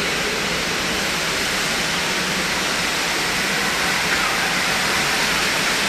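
Steady rushing of falling water from an artificial waterfall in an indoor rainforest exhibit, an even hiss with no breaks.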